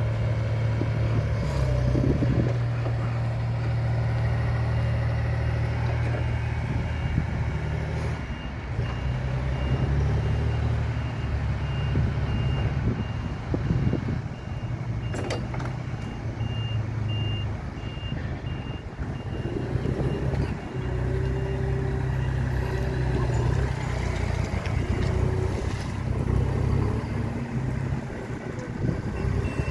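2020 Linde H35D-01 diesel forklift's engine running and revving up and down as the truck drives about. Through the second half its reversing beeper sounds over and over as it backs up.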